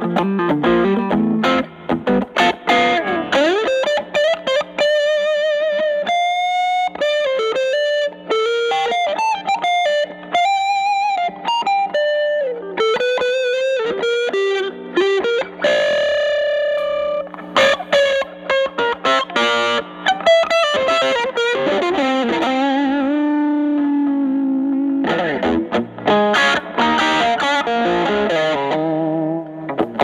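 Telecaster with Alnico single-coil pickups played through a Fender Studio Reverb combo amp with an 8-inch Celestion speaker, in an improvised run of single-note lead lines. The notes are bent and held with vibrato, with bursts of quick picked notes and chord stabs near the start and end.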